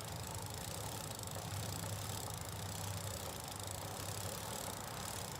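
Bicycle chain being turned through the drivetrain and wiped with a rag to dry it after solvent cleaning, a steady rattling run with no distinct clicks.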